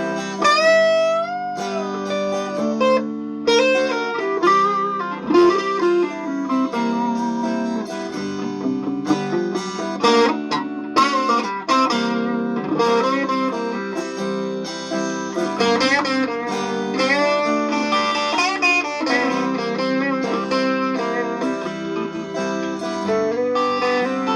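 Fender Telecaster electric guitar played: bluesy single-note lead lines with string bends over sustained notes, including a rising bend about a second in.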